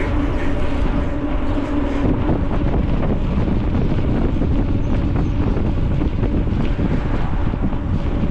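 Wind rushing and buffeting over the microphone of a bicycle rider going fast, a steady loud rumble.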